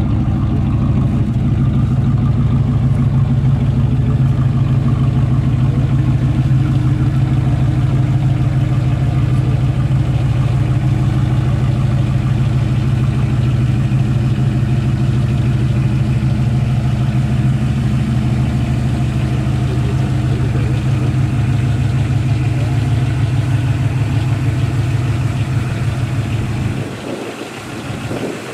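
1978 Pontiac Phoenix engine idling steadily through its exhaust. Near the end the sound briefly drops in level and thins out.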